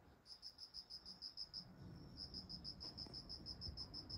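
Faint insect chirping: an even, high-pitched pulsing of about eight chirps a second, in two long runs with a short break about two seconds in.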